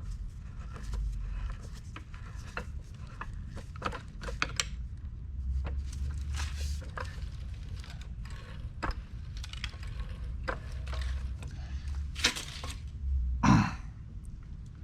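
Scattered light clicks, clinks and scrapes of hand work on a floor jack and its parts, over a low steady rumble, with one louder sound that drops in pitch near the end.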